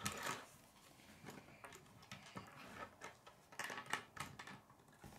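K'nex plastic rods and connectors being handled and snapped together on a wooden tabletop: faint, scattered light clicks and taps, with a small cluster of them near the end.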